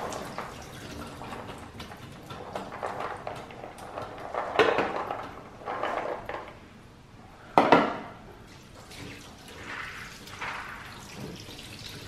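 Water running, pouring and dripping into a pan in the kitchen, with two louder knocks of kitchenware about four and a half and seven and a half seconds in.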